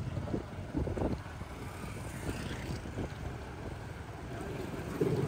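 Street traffic, mostly motorcycle engines running past, with wind rumbling on the microphone.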